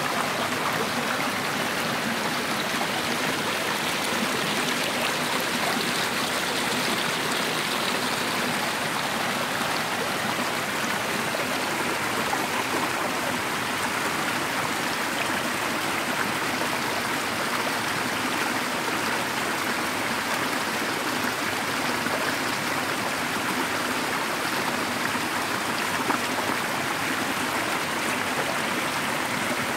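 Small mountain stream rushing steadily over rocks in little cascades.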